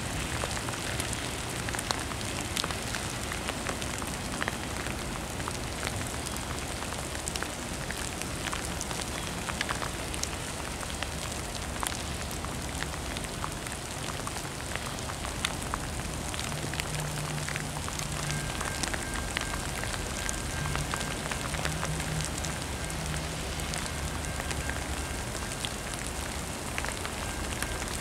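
Steady rain falling, with many small drops clicking close by. A faint steady high tone joins about two-thirds of the way in, coming and going in broken stretches.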